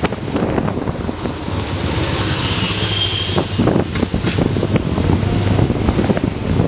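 Wind buffeting the microphone on a moving Suzuki 500 motorcycle, with the engine's steady low drone underneath.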